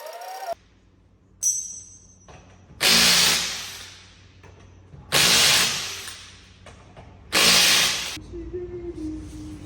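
Power impact wrench run in three short bursts about two seconds apart, typical of lug nuts being undone to take a wheel off.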